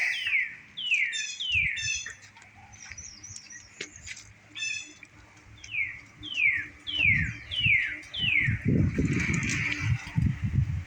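Songbirds calling in trees: runs of quick whistled notes, each sliding downward, mixed with a few short rapid trills. From about seven seconds in, a low irregular rumble sits under the calls.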